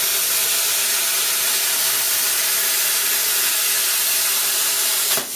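Hand-held plasma cutter cutting through steel plate: a steady, loud hiss of the arc and air jet, dipping briefly near the end.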